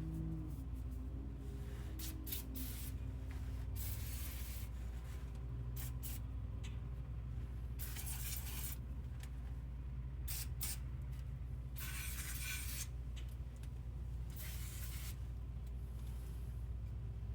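Aerosol can of PB Blaster penetrating oil sprayed in about ten short hissing bursts onto rusted bumper bolts, soaking them to free them up, over a low steady hum.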